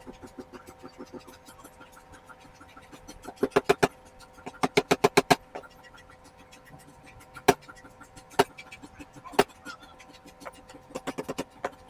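Sharp taps in quick runs of several, then single taps about a second apart, then another quick run near the end, over a steady hum.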